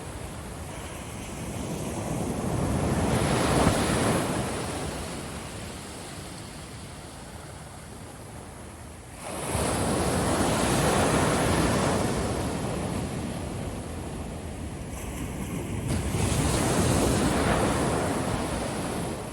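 Ocean surf breaking and washing onto a beach, swelling and fading in three waves; the second comes in abruptly about nine seconds in.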